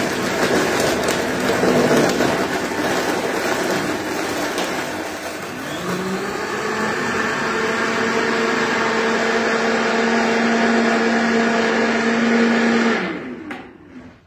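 Countertop blender crushing ice and frozen fruit: a loud, rough, churning noise at first. About six seconds in, the motor pitch rises and settles into a steady whine as the mix turns smooth. The motor cuts off and winds down near the end.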